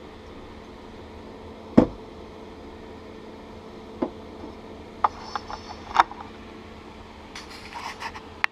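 A glass liquor bottle and a plastic shot cup being handled and set down on a camper table: a sharp knock about two seconds in, a few lighter knocks and clinks, and a patter of small clicks near the end, over a steady hum.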